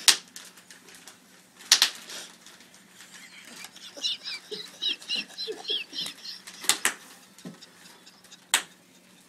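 Clear plastic wrapping being pulled off a gift, with a few sharp crackling snaps and a quick run of high squeaky chirps in the middle.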